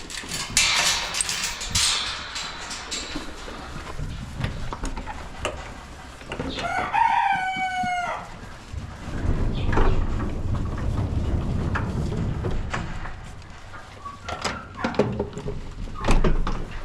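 A rooster crowing once, a call of about a second and a half, amid chicken clucks and rustling around the barnyard.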